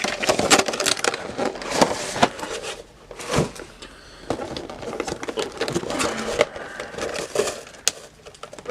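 Cardboard and plastic packaging of a trading-card collection box being handled and opened: irregular clicks, taps and crinkling, with a single firmer knock about three and a half seconds in.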